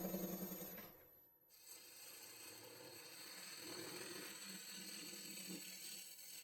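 Record Power Coronet Herald wood lathe running as a chunk of maple is turned, with a steady hum that cuts off sharply about a second in and comes back quieter for the rest.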